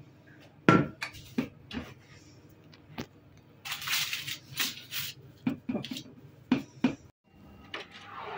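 Kitchen handling sounds as pide is laid on a baking tray: scattered sharp knocks and clatters, with a short scraping rustle about four seconds in.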